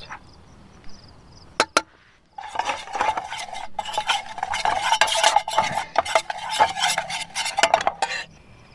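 A metal spoon scraping and clinking around the inside of a small metal camping frying pan. It is a quick, continuous run of scrapes from about two and a half seconds in until just past eight seconds, after a couple of light clicks.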